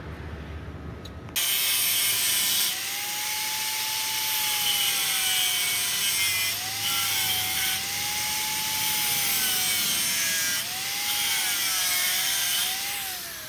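Electric angle grinder with a cutoff disc cutting through a steel strip. It starts abruptly about a second and a half in, and the motor's pitch dips and recovers as the disc bites into the metal. The pitch falls away near the end as the grinder winds down.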